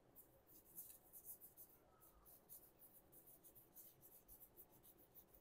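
Faint rustling and flicking of trading cards being thumbed through one after another in the hands, a string of soft, irregular papery ticks.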